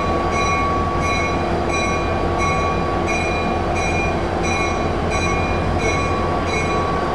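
Passenger train pulled by a GP30 diesel locomotive rolling slowly past, with a steady low rumble and a thin steady high tone. Over it a bell rings in an even rhythm, about one and a half strokes a second.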